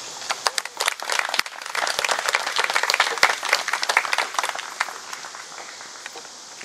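Audience applauding: a burst of clapping that builds, then dies away a little over five seconds in.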